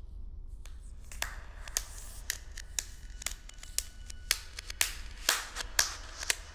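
A low rumbling drone under sharp, dry clicks that begin about half a second in and come at a steady pace of about two a second, getting louder.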